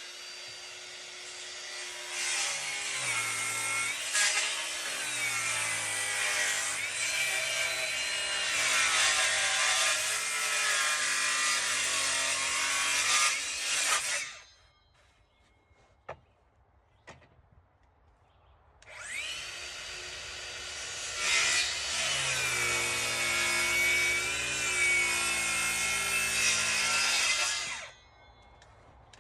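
Power saw cutting through wood to shape a stair stringer, the motor's pitch dipping and recovering as the blade takes the load. It cuts for about fourteen seconds, stops for about five with a couple of light knocks, then cuts again for about nine seconds.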